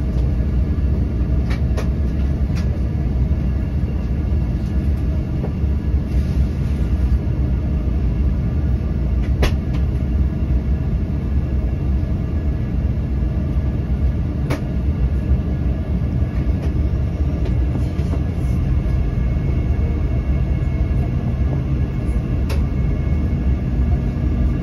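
Steady cabin noise inside an Embraer E195 airliner on approach: a low rumble of airflow and the CF34 turbofan engines with a faint steady whine above it. A few brief faint clicks come through, about five in all.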